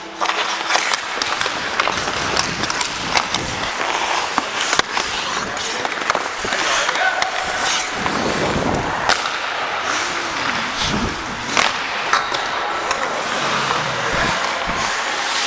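Ice hockey skates scraping and carving on rink ice during play, with many sharp clacks of sticks on the puck and ice.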